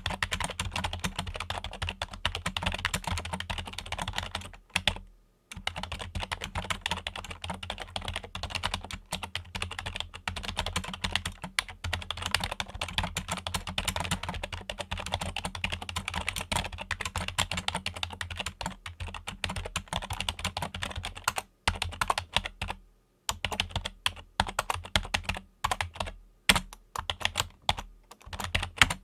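Fingers typing on a Logitech computer keyboard: a fast, dense run of key clicks over a steady low hum. The typing stops briefly about five seconds in and again past the twenty-second mark, then comes in short bursts near the end.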